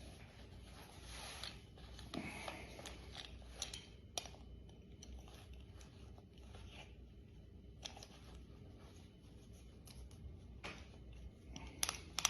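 Faint rustling and rubbing of a leather belt being threaded through trouser loops, with a few sharp clicks near the end as the ratchet buckle is fastened.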